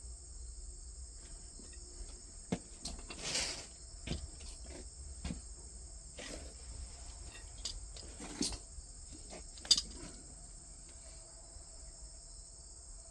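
Scattered clicks, knocks and brief rustles of metal parts and tools being handled during a search for missing washers, the loudest a few seconds in and around two-thirds of the way through, over a steady high-pitched background buzz.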